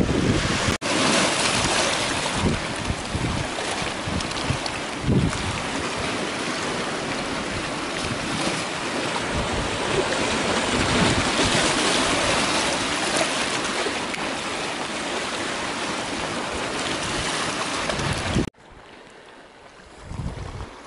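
Sea water washing over a rocky shore, a steady rushing hiss, with gusts of wind rumbling on the microphone. Near the end it drops off suddenly to much quieter wind.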